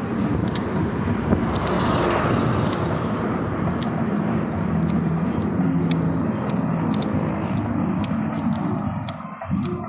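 Street noise dominated by a motor vehicle's engine running, with a steady low hum and a hiss that swells about two seconds in as it passes, plus scattered light clicks.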